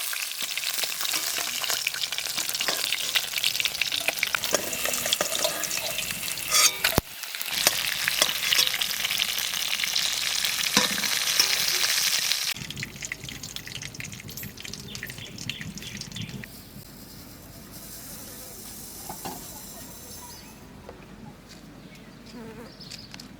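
Pieces of tilapia frying in hot mustard oil, a loud, dense sizzle with stirring and scraping in the pan. About twelve seconds in, the sizzle drops suddenly to a much quieter crackle.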